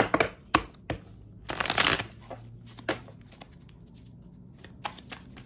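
A Celtic Tarot deck being shuffled by hand: scattered taps and slides of cards, with a denser run of card flicks about a second and a half in.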